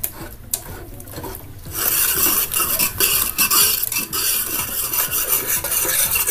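Metal spoon stirring and scraping a thick, wet fenugreek-and-jaggery mixture in a wide uruli pan as it comes to the boil. The stirring becomes much louder and busier about two seconds in.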